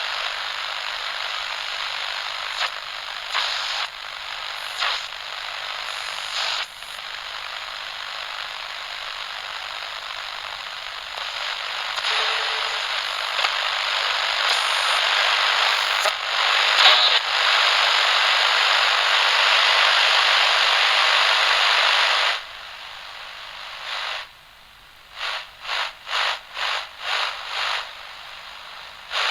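Loud crackling hiss of noise like broadcast static, broken by a few brief clicks, that cuts off abruptly about 22 seconds in. It is followed by a quieter stretch and then a run of short noise pulses about twice a second.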